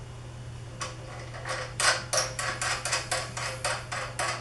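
Small metal press hardware handled and threaded on by hand: a lock nut going onto the threaded off-contact post, making a quick run of light clicks and rattles, about five a second, that starts about a second in.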